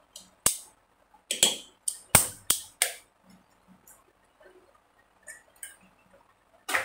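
Fingers handling paper cut-outs on a table: a run of short, sharp taps and clicks, about six close together in the first three seconds, then a few faint ones and one loud tap at the end.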